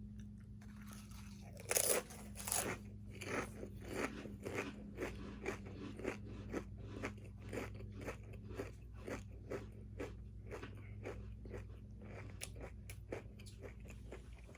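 Crunching bite into a stack of Pringles potato chips, then steady chewing: a loud first crunch a little under two seconds in, followed by short crunches about twice a second that gradually fade.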